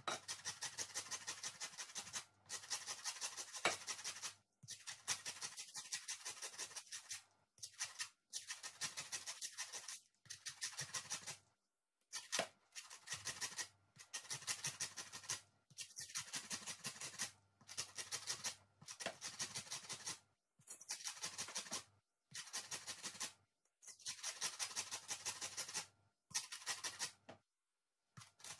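Lemon being zested on a flat metal hand grater: rapid rasping strokes in bursts of one to two seconds, with short pauses between them.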